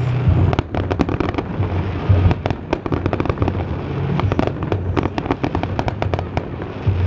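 Fireworks display: many shells bursting in quick, irregular succession, a dense run of bangs and crackles, over a low rumble.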